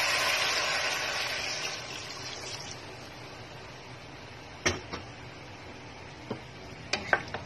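Water poured from a bowl into a hot pan of browned chicken, gushing and hissing, then dying away over the first two to three seconds. A few sharp knocks follow near the end, the loudest two close together.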